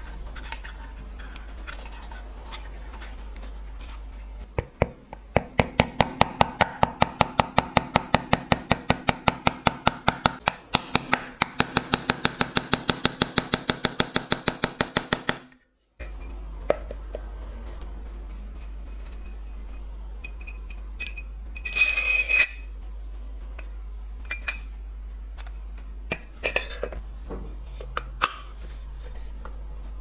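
Rapid, even clicking, about five clicks a second for some ten seconds, that stops abruptly. Later, a few light metallic clinks and a brief ring as the coffee grinder's metal hopper and cover parts are handled.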